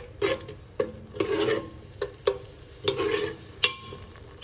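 A metal spoon stirring and scraping a thick onion-and-yogurt masala as it fries in a metal pot: irregular clinks and scrapes of spoon on metal over a soft sizzle.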